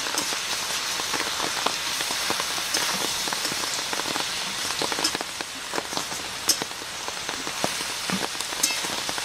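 Steady hiss of rain falling, mixed with food frying in an iron karai, and scattered clicks and scrapes of a metal spatula stirring potatoes and chicken in the pan.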